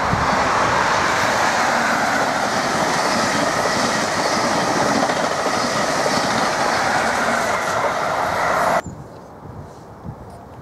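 A First Great Western High Speed Train runs through the station at speed with a steady rush of wheels on rail. The sound cuts off suddenly near the end.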